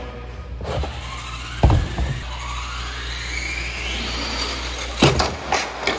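RC monster truck speeding toward the ramp, its motor whine rising in pitch, with a thump about a second and a half in. About five seconds in there is a loud crash as the truck hits the rim of the trash can.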